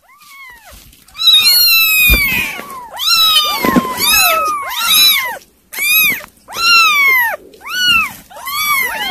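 Kittens mewing loudly and over and over, about one high-pitched mew a second, each rising and then falling in pitch, with some calls overlapping from more than one kitten.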